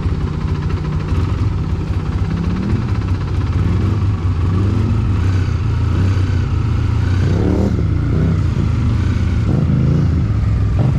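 Off-road vehicle engine running, its pitch rising and falling several times as it revs up and eases off.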